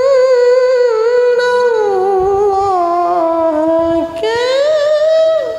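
A woman's voice chanting Quranic recitation (tilawah) in the Bayyati maqam at its high jawabul jawab register, through a microphone. A long, wavering held note slides down step by step, then about four seconds in a new phrase, "Innallaha", rises and is held.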